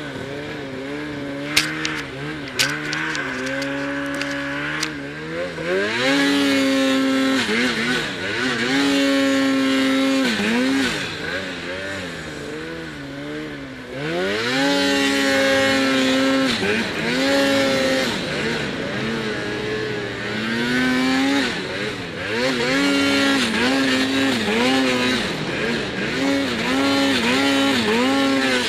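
Snowmobile engine revving up and down over and over under throttle, its pitch sweeping up steeply, holding, then dropping back, as it works through deep powder snow. A few sharp clicks come about two seconds in.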